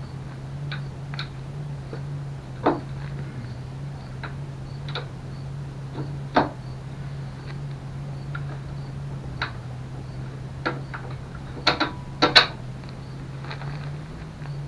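Scattered sharp clicks and knocks of parts or tools being handled, loudest in a quick cluster about twelve seconds in, over a steady low hum.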